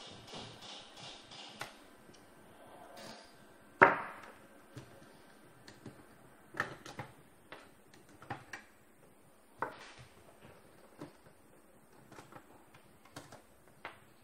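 Hard parts of a copier fuser unit handled and worked apart by hand. A short rapid rattle comes first, then one loud sharp knock about four seconds in, then scattered light clicks and clinks as a gear and fittings are taken off the end of the unit.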